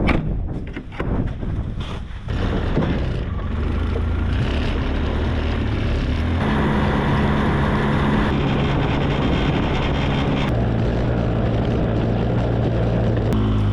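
A motor vehicle's engine gets going and then runs steadily under way, its pitch stepping up and down a few times. A few knocks come in the first couple of seconds.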